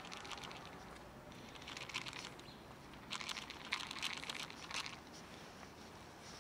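Dry cat kibble rattling and shifting in a handheld plastic container, in short crinkly clusters about two seconds in and again from about three to five seconds in.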